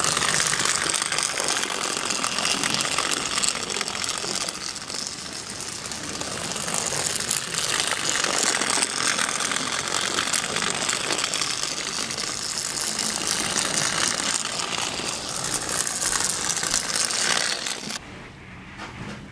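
Dorfan No. 51 toy electric locomotive running along tinplate track, a steady mechanical running noise of motor, gears and wheels on the rails. It cuts off sharply near the end.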